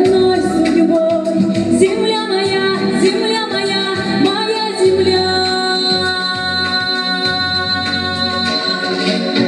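A song with a woman singing over instrumental accompaniment, the voice holding long notes in the second half.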